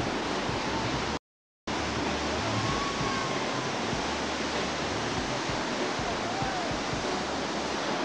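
Steady rushing of big whitewater rapids. The sound cuts out completely for a split second about a second in.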